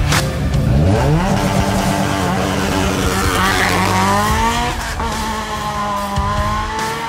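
Hatchback race car's engine revving up and held at high revs on the start line. About four seconds in, the car launches and accelerates away, the engine note climbing steeply, breaking at a gear change near five seconds, and climbing again.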